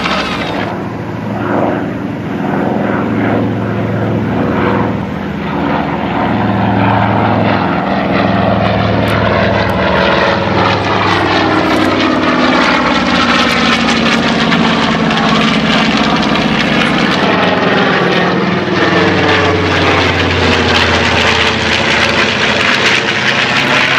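North American B-25 Mitchell bomber flying past low, its two Wright R-2600 radial engines and propellers making a loud, steady drone. The pitch slides down and then back up as the aircraft passes.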